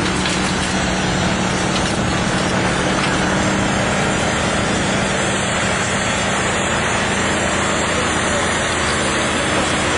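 An engine running steadily, an even dense noise with a constant low hum under it.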